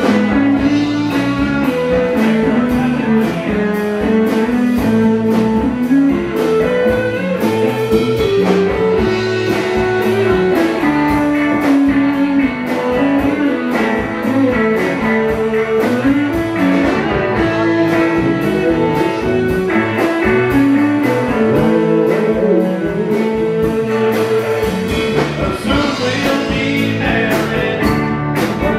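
Live rock band jamming: several electric guitars over a Hammond keyboard, with a steady drum beat.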